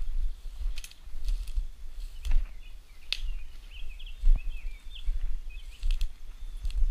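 Footsteps swishing and crunching through grass and brush, with wind rumbling on the microphone. Around the middle, a bird chirps a quick run of short notes.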